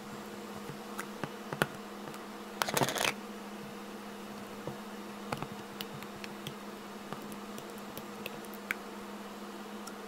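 Fluffy slime being squished and stretched by hand, giving scattered small clicks and pops with a louder crackling squelch about three seconds in, over a steady buzzing hum.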